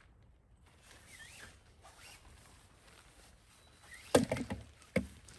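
Tent poles and fabric being handled while a tent is pitched: a loud clatter with rustling about four seconds in, then a single sharp knock a second later.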